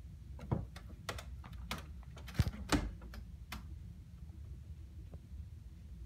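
A run of irregular soft clicks and taps, the loudest two a little past the first third, over a low steady rumble.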